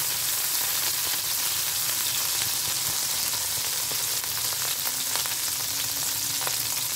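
Curry leaves frying in hot mustard oil in a pan: a steady sizzling hiss with scattered small crackles.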